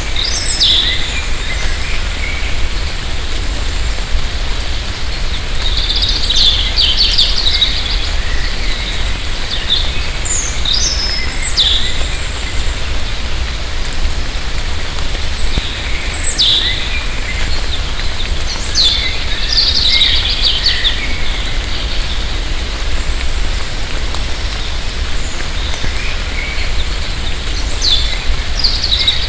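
Light rain falling steadily in a forest, with birds calling now and then over it: quick falling whistles and short bursts of chirping.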